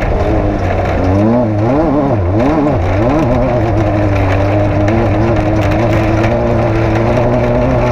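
Off-road race vehicle's engine running hard, its pitch swinging up and down several times in the first few seconds, then holding a fairly steady note with small wobbles.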